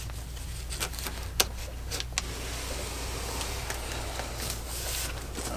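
Cardboard scraping and rubbing as an inner guitar box is slid up out of its outer shipping carton, with a few sharp knocks of cardboard in the first couple of seconds, over a steady low hum.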